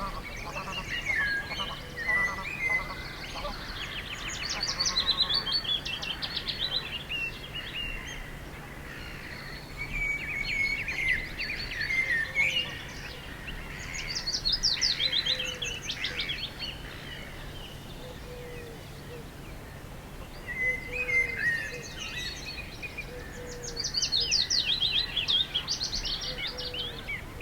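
Wild songbirds singing: short song phrases of fast trills, repeated every few seconds with pauses between them, and a fainter, lower call that recurs underneath.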